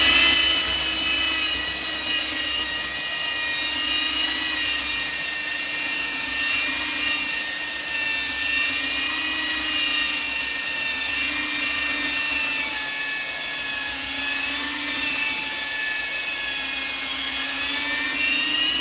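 Bauer 20-volt cordless brushless 3x18 belt sander running steadily while sanding paint off a clamped wooden board, pressed down pretty hard; its motor and belt whine holds steady, the pitch wavering slightly now and then.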